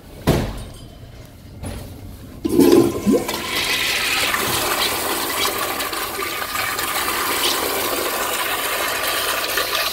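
Toilet flushing. A thump comes about a quarter second in, then a loud surge of water a couple of seconds later, settling into a steady rush of water swirling down the bowl.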